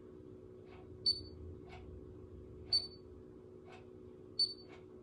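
Babyliss Lasting Waves heated hair styler beeping while clamped on the hair: a short high beep about every second and a half, three times, over a steady low hum.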